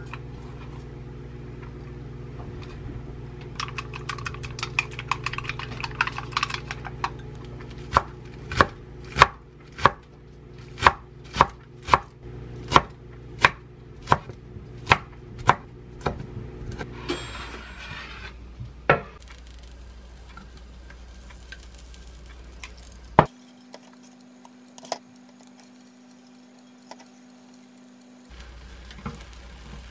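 Chef's knife chopping garlic chives on a wooden cutting board: light quick cuts at first, then a run of about a dozen sharp, evenly spaced chops, about one and a half a second, then a few single knocks. Near the end a faint sizzling begins as beaten egg cooks in the pan.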